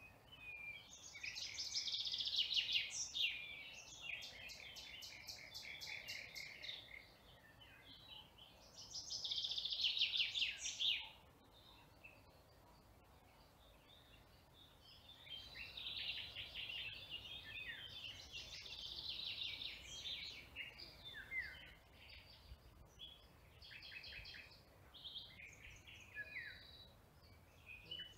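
Small songbirds singing in bursts of fast, twittering phrases: two strong bursts in the first eleven seconds, then, after a few seconds' pause, a longer run of varied phrases.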